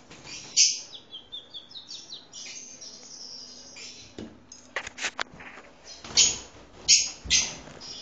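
African lovebirds calling: shrill, high-pitched screeches, with a quick run of short chirps early on and several loud shrieks near the end. A few sharp clicks come around the middle.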